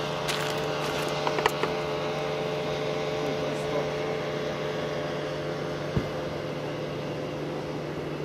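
A small petrol engine running steadily at a constant speed, with a few light knocks about a second and a half in.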